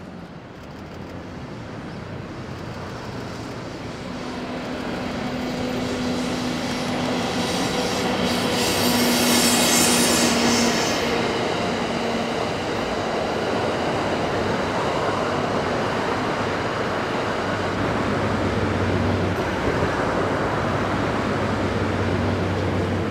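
EF64 electric locomotive hauling the E26-series Cassiopeia sleeper cars past: a steady hum builds as the locomotive approaches, is loudest with a high hiss about ten seconds in, then gives way to the cars' wheels rumbling by on the rails.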